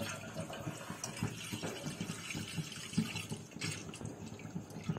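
Milk pouring from a jug into a stainless steel pot, a continuous splashing fill.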